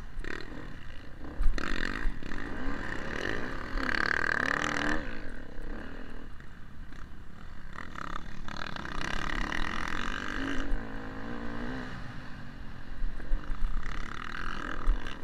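Motocross bike engine heard onboard, its pitch rising and falling as the rider opens and closes the throttle around the track, with a sharp knock about a second and a half in and low rumble from the bike bouncing over the dirt.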